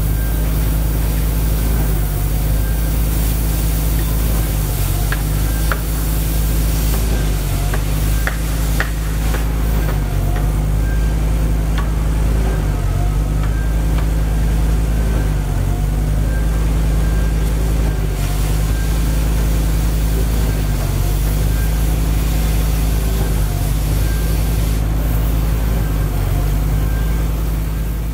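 Gas cutting torch hissing and sizzling as it burns through steel rebar, over a steady low rumble, with a few sharp pops in the first half.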